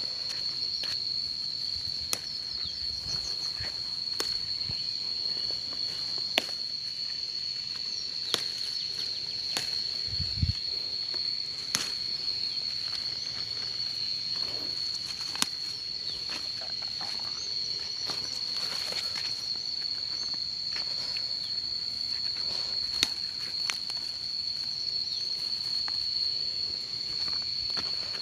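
Insects droning steadily at one unbroken high pitch, with scattered sharp clicks and soft rustles of someone moving among garden plants.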